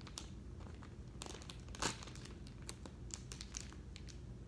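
Plastic toy packaging crinkling and being torn open, in scattered crackles with one louder crackle about two seconds in.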